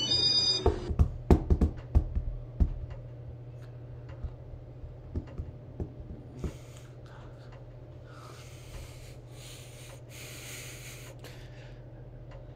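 Casablanca Victorian ceiling fan's XLP motor humming steadily. In the first few seconds there is a quick run of sharp knocks and clicks, fewer and fainter ones up to about six seconds in, and soft patches of hiss later on.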